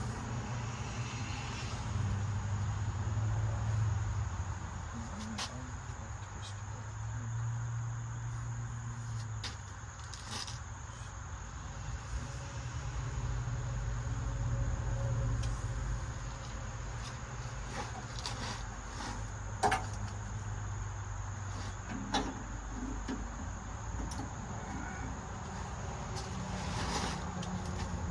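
Scattered clicks and knocks of welding equipment and cables being handled and hung on a metal welding cart, the sharpest one a bit under two-thirds of the way through, over a steady low hum and a faint steady high whine.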